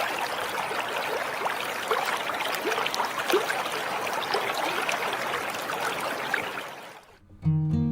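Running water: a steady trickle with small gurgles, fading out shortly before the end.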